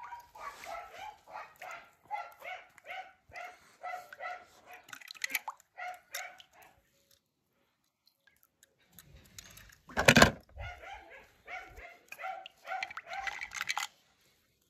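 A dog barking in quick repeated barks, a couple a second, stopping for a few seconds midway and starting again. A loud sharp thump about ten seconds in is the loudest sound.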